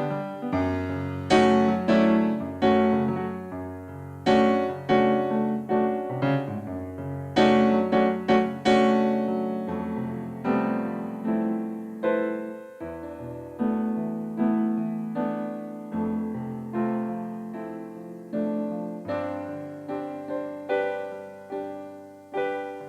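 Keyboard played solo: chords struck every second or so, each ringing and fading away, over held low bass notes.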